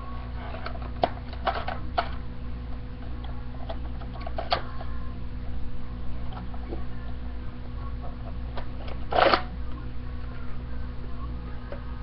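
Plastic clicks and rattles of a Nerf Magnus dart blaster being handled and loaded, with one louder, short rushing burst about nine seconds in.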